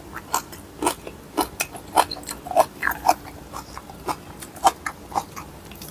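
A person chewing a mouthful of spicy mixed-seafood papaya salad close to the microphone: irregular wet clicks and crunches, several a second.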